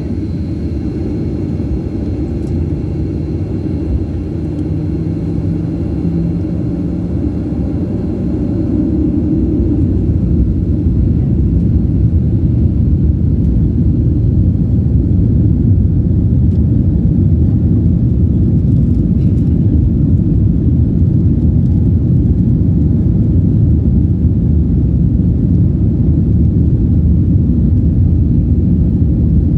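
Cabin noise of a Boeing 737 on its takeoff roll: a deep engine and runway rumble that grows louder over roughly the first ten seconds as thrust comes up, then holds steady.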